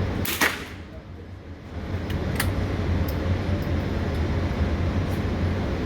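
A gunshot at an indoor range about half a second in, loud enough that the recording's level dips for about a second after it, followed by several fainter shots from farther off. A steady low hum of the range's ventilation runs underneath.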